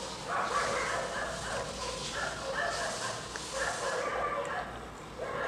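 A dog barking repeatedly in short calls.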